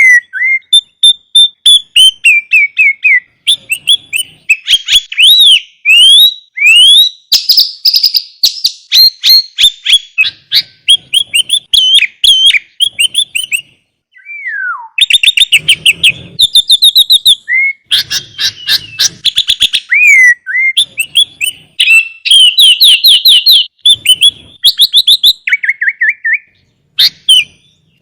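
Sooty-headed bulbul (kutilang) singing in full, continuous song: a fast stream of chirps, trills and whistled phrases with brief pauses, including one slow downward-sliding whistle about halfway through.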